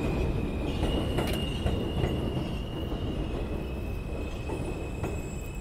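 New York City subway train pulling into an elevated station and slowing. Low rumble with wheels clacking over rail joints and a steady high-pitched wheel squeal, which steps up in pitch about a second in and back down around three seconds. It grows quieter as the train slows to a stop.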